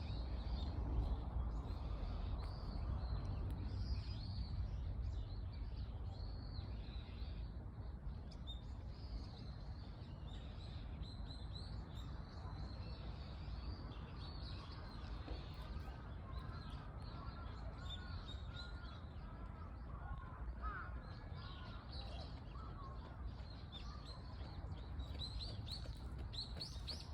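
Outdoor ambience of many birds chirping and calling, with a run of lower wavering calls in the middle, over a steady low rumble.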